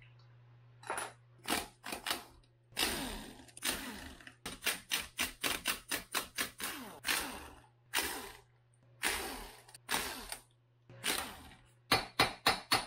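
Air impact wrench running the crankcase bolts in a string of short bursts. Near the end comes a quick run of sharp hammer blows on the crankshaft, driving the case halves apart without a case splitter.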